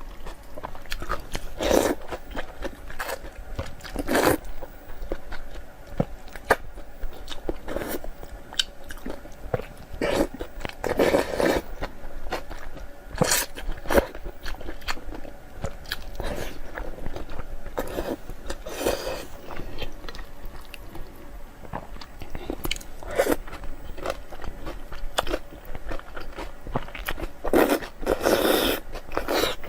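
A person eating close to the microphone: irregular sharp bites and chewing, with short louder bursts every second or two.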